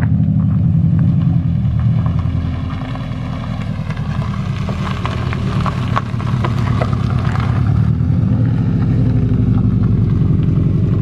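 Subaru WRX engine running with a steady low drone that eases slightly a few seconds in, with a scatter of light clicks in the middle.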